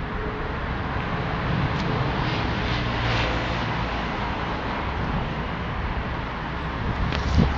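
Street ambience with a steady rumble of road traffic, and a short knock near the end.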